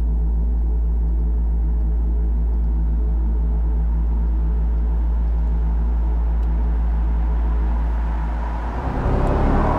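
Mercedes-AMG EQE 53 4MATIC+ electric car driving at a steady speed, its electric sport sound a steady low hum of several held tones. About eight and a half seconds in, the hum gives way to a louder, rougher rush of road noise.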